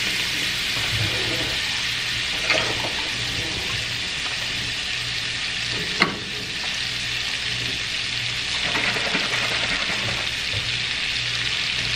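Stick of butter melting and sizzling in a nonstick skillet on a gas burner: a steady frying hiss with a low hum underneath. A sharp click sounds about six seconds in.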